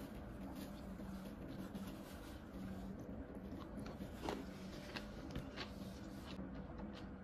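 Quiet room tone with a low steady hum and a few soft clicks and taps, one a little louder about four seconds in.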